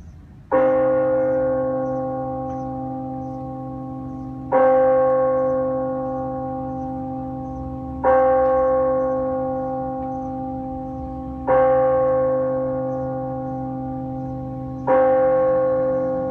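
A single bell tolled slowly as a memorial toll, struck five times about every three and a half seconds. Each strike rings on with several clear tones and fades slowly until the next, over a low steady hum.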